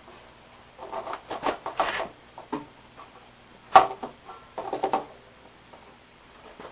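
Handling noise from a pendulum-and-lever oscillator rig as a single spring is fitted: clusters of clicks and clatter, with the sharpest knock a little under four seconds in.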